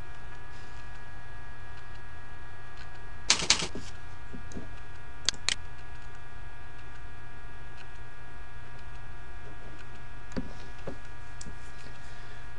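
A few sharp clicks of a computer keyboard and mouse: a close pair about three and a half seconds in, another pair about two seconds later, and fainter ones near the end. Under them runs a steady electrical hum with several fixed tones.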